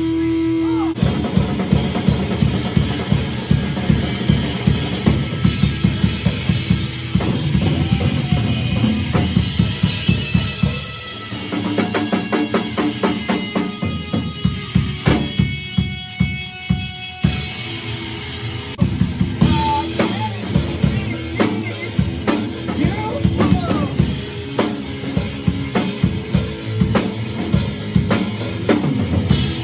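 Music carried by a full drum kit, kick and snare with cymbals, playing a steady beat that thins out briefly about halfway through before coming back in.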